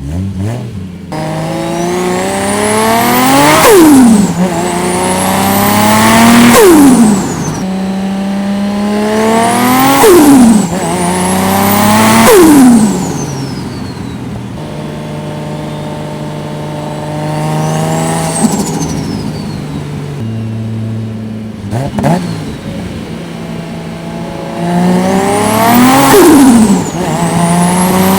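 Turbocharged Toyota 1JZ-GTE VVTi straight-six making a run of short pulls: the revs and the turbo whistle climb, then the throttle shuts and the revs drop with turbo flutter. Around six such pulls, with a steadier cruise in the middle.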